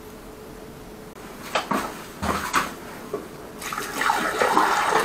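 A stream of water pouring into an open urinal drain pipe in a tiled floor and splashing over the tiles, starting as a steady rush about three and a half seconds in, after a few brief handling sounds.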